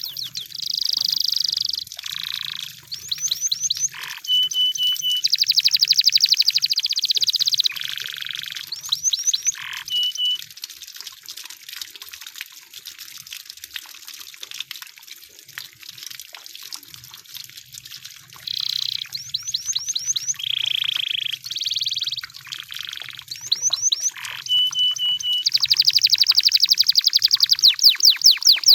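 Canary singing: phrases of fast trills and short steady whistled notes, separated by brief pauses, with a quieter, sparser stretch about halfway through.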